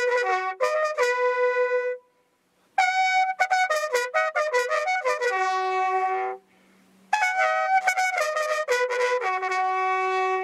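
Solo brass horn playing a slow, solemn call in three phrases: each starts with a few quick short notes and settles into long held notes, with brief pauses between the phrases.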